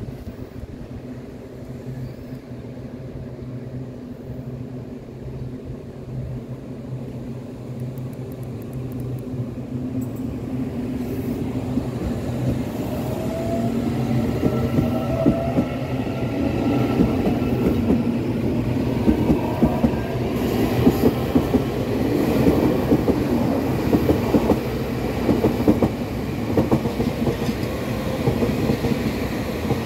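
Taroko Express tilting electric multiple unit approaching on the rails, growing steadily louder over the first half, with wheels clicking over rail joints in the second half.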